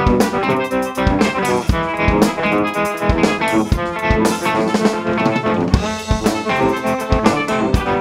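Drum kit playing a steady beat together with an electric guitar, a Gibson Les Paul Custom, whose notes run through a Hologram Dream Sequence pedal as a sequenced, synth-like pattern.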